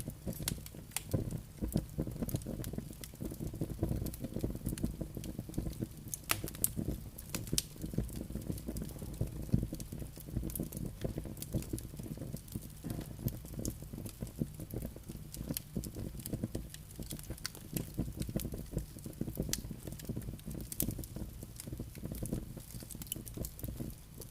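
Wood fire burning in a fireplace: logs crackling and popping in irregular sharp clicks over a soft steady rumble of flames.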